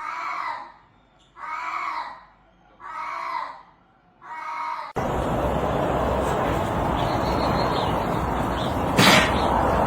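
An animal calls four times, about a second and a half apart, each call short and pitched. Then comes a sudden change to a steady rushing hiss, with one sharp knock near the end.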